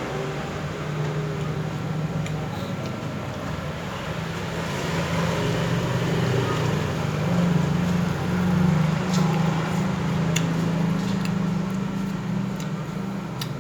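Steady low hum of motor-vehicle traffic, with several sharp clicks in the last few seconds.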